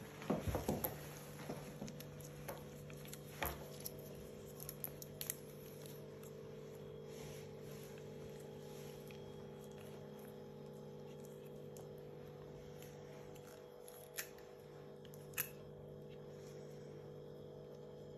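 Tight latex gloves being pulled and snapped on the fingers: a quick run of snaps and rubbery squeaks, then scattered softer clicks. After that a stethoscope is handled in gloved hands, with two sharp clicks near the end. A steady low hum runs underneath.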